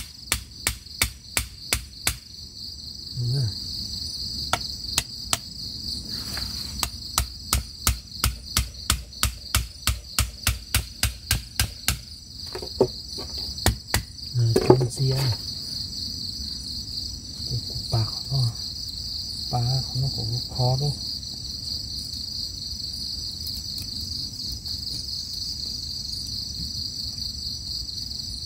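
Machete blade chopping bamboo in quick, even taps, about three a second, for the first dozen seconds, then a few scattered knocks. A steady high chorus of night insects runs underneath.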